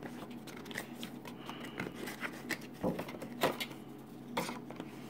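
Cardboard box and plastic packaging being handled as accessories are lifted out: scattered light taps, scrapes and rustles, with a few sharper knocks in the second half.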